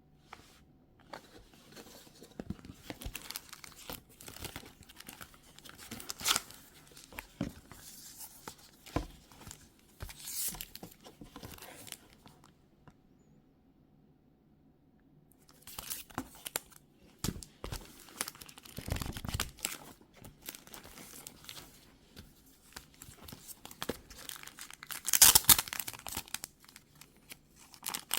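Packaging around a photo book being torn open and crinkled by hand, in irregular spells of tearing and rustling. There is a few-second pause in the middle, and the loudest tear comes near the end.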